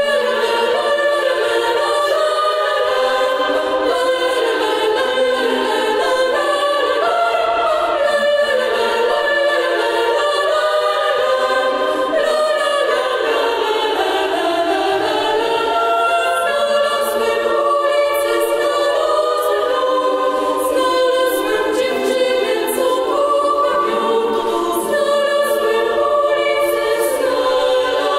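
Girls' choir singing in many-voiced harmony, the voices held high, with little in the low range.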